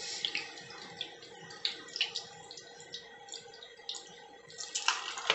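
Pizza dough base frying in olive oil in a pan, sizzling with irregular crackles and pops of spitting oil.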